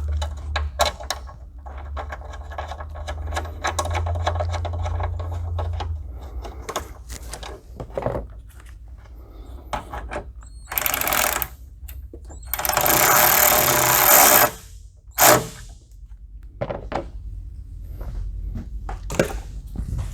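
A small handheld power tool, such as a cordless driver, runs steadily for about six seconds, driving down the bolt that holds the oil separator bracket. Later come clicks and handling knocks, and a loud noisy rush of about two seconds, the loudest thing heard.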